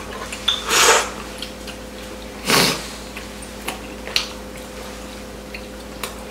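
Close-up eating sounds: chopsticks clicking against plastic bowls and wet chewing of braised chicken and glass noodles, with two brief loud slurps about a second in and again near the middle. A faint steady hum runs underneath.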